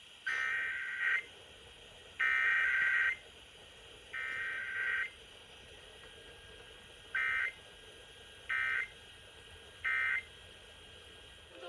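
Emergency Alert System SAME digital data bursts: three buzzing two-tone header bursts about a second long and a second apart, then after a pause three short end-of-message bursts.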